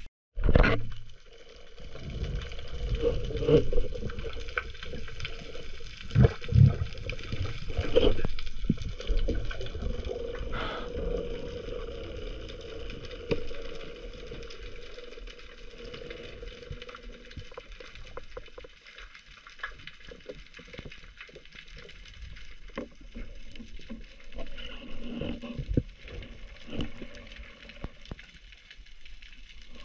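Water bubbling and swishing around the camera of a spearfisherman in apnea, with dull knocks and thumps scattered throughout. The sound drops out for a moment just after the start.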